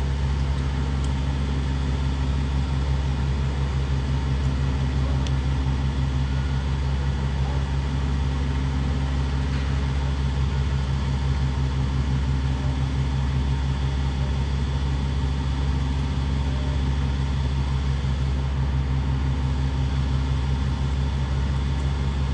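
A vehicle engine running steadily: a constant low rumble with a fast, even pulse.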